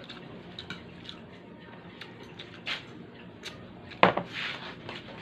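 Tableware clinking during a meal: utensils tapping a plate and a small ceramic bowl of atsara in scattered light clicks. One louder clack comes about four seconds in.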